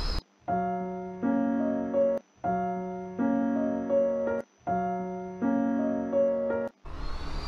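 A short keyboard phrase, a held chord followed by a second chord, played three times with short gaps. A rushing noise sounds briefly at the very start and again near the end.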